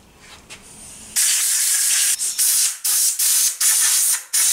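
Compressed-air blow gun blasting air over a moped engine part to clear it of grit, in a run of loud hissing blasts with brief breaks. The blasts start about a second in.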